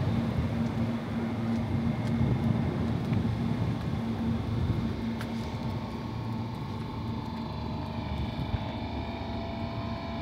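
Steady low mechanical hum from the standing Ghan passenger train, with a held low tone. From about seven seconds in, several higher whining tones join it.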